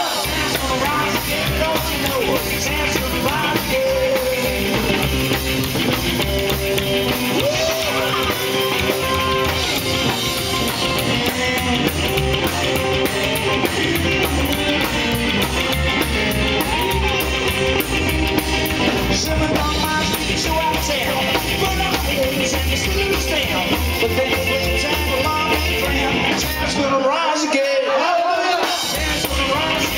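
Live rock and roll band playing, with upright double bass and electric guitar over a steady low pulse. Near the end the low end drops out for about two seconds, a break in the song, before the band comes back in.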